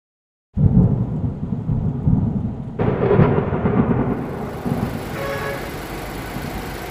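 Thunder rumble as an intro sound effect: it starts suddenly about half a second in, a second crack comes near three seconds, then a rolling rumble slowly dies down.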